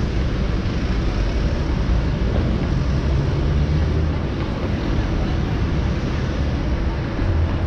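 Steady wind rush over the microphone of a camera on a moving bicycle, mixed with road and traffic noise.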